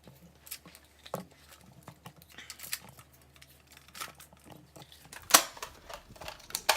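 Plastic clicks and handling noises of a toy Nerf blaster being loaded with foam darts: scattered small clicks, with a couple of louder, sharper clacks about five seconds in and near the end.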